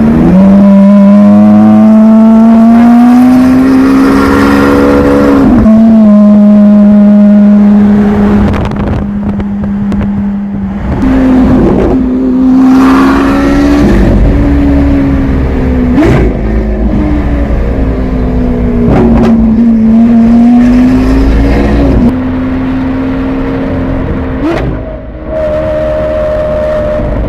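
Lamborghini Aventador SV's 6.5-litre V12 through a Capristo exhaust, driven at fairly low revs, its note rising and falling as it pulls and shifts. Several sharp cracks from the exhaust break in at intervals.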